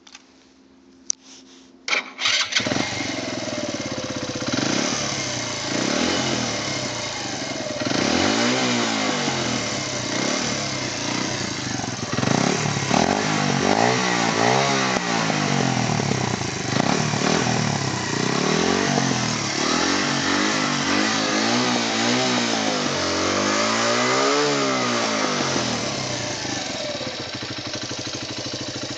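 Kreidler Supermoto 125 DD's single-cylinder four-stroke engine with its stock, restricted exhaust starts about two seconds in and runs. It is then revved again and again, each rev rising and falling in pitch, and it settles back toward idle near the end.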